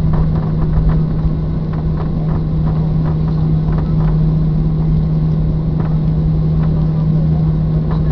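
Cabin noise inside a Boeing 737-800 on the ground: the steady hum of its CFM56-7B engines with a constant low tone, and scattered light knocks and rattles.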